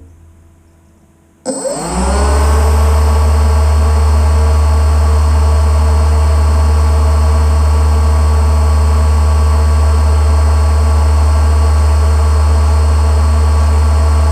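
A boat engine starts abruptly about a second and a half in, rising briefly in pitch, then runs loud and steady at an even speed with a deep hum.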